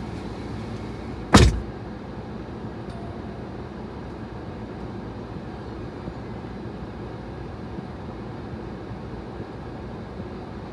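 A car door shuts with one sharp thump about a second and a half in, heard from inside the parked car. A steady low hum fills the closed cabin around it.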